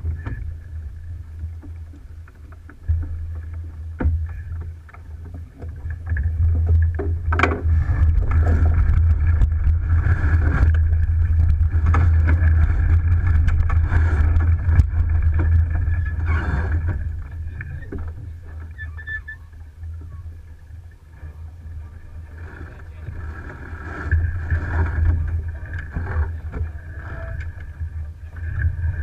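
Wind rumbling on the microphone and water rushing past the hull of an Alberg 30 sloop under sail, growing louder from about six seconds in until about seventeen seconds in and again later. A sharp knock about seven seconds in.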